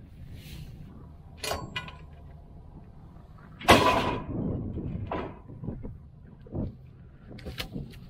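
Wooden fence posts being pulled off a plank-decked flatbed trailer and laid out: a few wooden knocks and thuds, the loudest a little under four seconds in.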